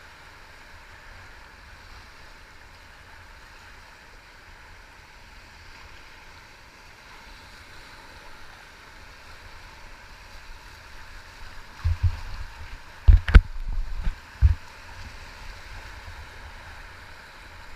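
Steady rush of river water around a raft. In the last few seconds there are low thumps and a sharp knock close to the microphone.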